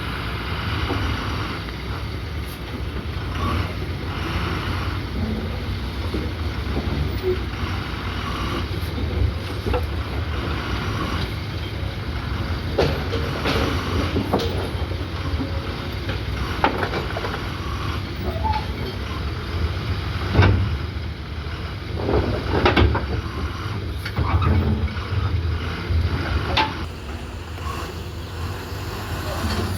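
A steady low engine-like rumble with scattered knocks and clanks, a few louder knocks clustering near the end.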